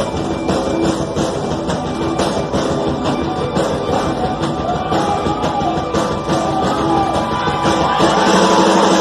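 Punk rock band playing live, with a driving drum beat and electric guitar, and singing that comes in about halfway through.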